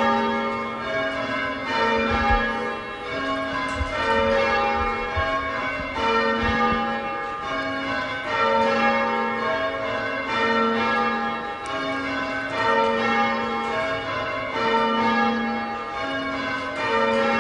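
The cathedral's ring of church bells, cast in 1910 by John Taylor and Company, being rung full circle in change ringing: the bells strike one after another in steady rows, the deepest bell coming round about every two seconds, each stroke hanging on as it rings out.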